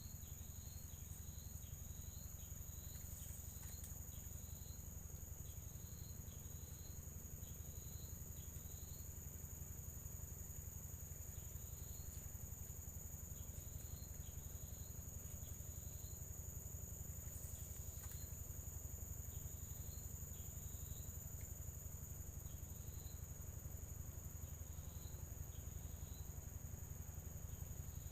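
Insects trilling with one steady high-pitched note, with short chirps repeating on and off and a faint low rumble underneath.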